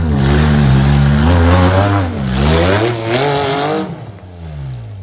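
Off-road buggy engine revving hard on a steep dirt hill climb. The pitch rises, dips about two seconds in and climbs again, then falls away and fades about four seconds in.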